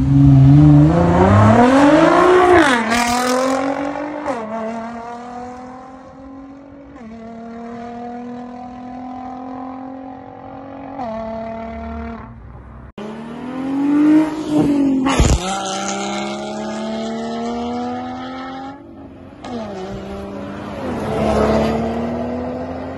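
Sports car engines revving hard and pulling through the gears in a few short clips cut together: the engine note climbs and then drops at each upshift. A single sharp crack comes about two-thirds of the way in.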